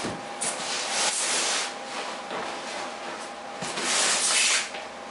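Cardboard and styrofoam rubbing and scraping as a cardboard box is slid off a styrofoam packing box, and the foam box is pushed across a wooden workbench, with a short knock at the start and the loudest scraping about four seconds in.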